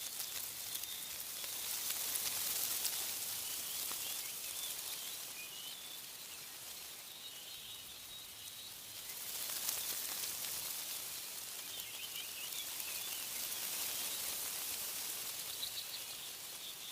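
Wind rustling through tree leaves in gusts that swell and fade, with small birds chirping over it.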